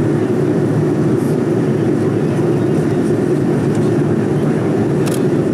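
Steady cabin noise of a Boeing 787-9 in cruise, heard from a window seat by the wing: an even, low rushing drone of airflow and GEnx engine noise.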